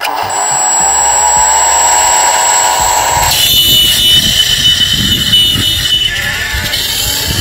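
Small foam RC airplane's electric motor and propeller whining at high throttle through the hand launch and climb. The pitch rises slightly over the first few seconds, then shifts to a higher whine about three seconds in.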